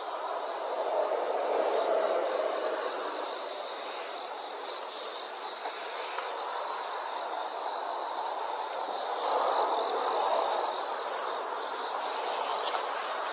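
Outdoor background sound: a steady high insect buzz over a broad rushing noise that swells and fades, about a second in and again near ten seconds.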